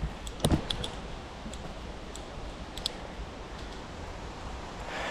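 Footsteps and rustling on a forest path: a few light clicks and a dull thump about half a second in, over a steady background hiss.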